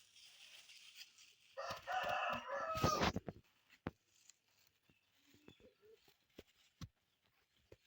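A rooster crowing once, a call of about a second and a half beginning near two seconds in, with light clicks and rustles scattered around it.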